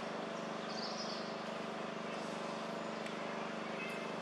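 A steady low mechanical hum with a few brief high chirps over it.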